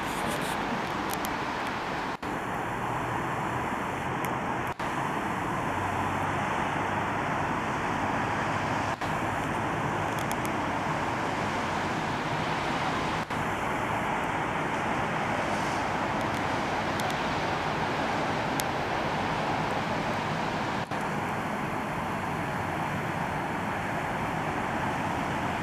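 Distant road traffic below: a steady, even hum of cars on the riverside road and bridge, broken off for an instant about five times.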